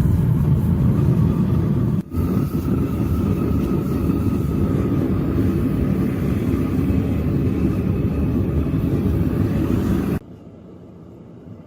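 A motor running steadily with a low rumble and a faint whine, cutting off suddenly near the end to a quieter hum.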